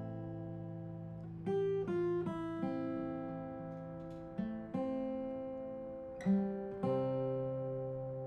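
Acoustic guitar music: slow picked chords, each struck and left to ring out before the next.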